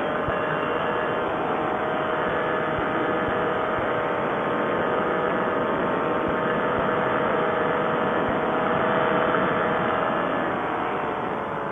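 Paramotor engine and propeller running at a steady pitch, the pitch easing down slightly near the end.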